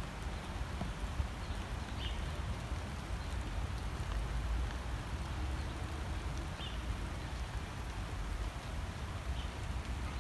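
Steady rain falling on a garden lawn and paving, with a low rumble underneath. A bird chirps briefly three times over it.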